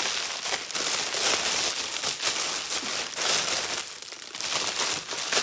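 Clear plastic packaging crinkling and rustling as hands unwrap small items, with a short lull about four seconds in.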